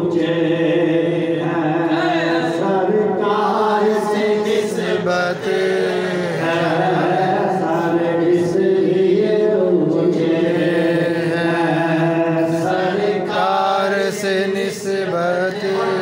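A man's voice chanting a naat, an Islamic devotional poem, into a microphone. The phrases are long and drawn out, with notes held and bent in pitch.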